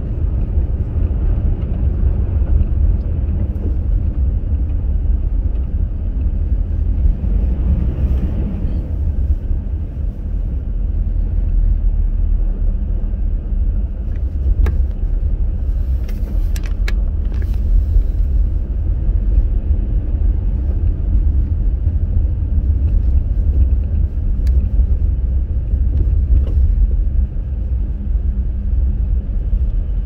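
Steady low rumble inside the cabin of a moving Subaru Crosstrek: road and tyre noise from Blizzak winter tyres on a snow-covered road, mixed with the engine. A few faint clicks come about halfway through.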